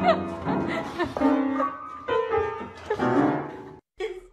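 Upright piano sounding irregular clusters of notes as a cat's paws press down on the keys. It cuts off abruptly near the end.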